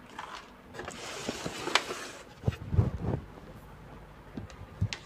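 Handling noise on a workbench: a rustle, then several dull knocks and a few sharp clicks.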